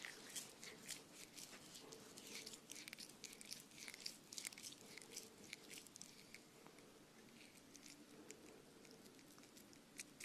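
Faint crunching: a rapid run of small crisp crackles, thickest over the first six seconds and thinning out after.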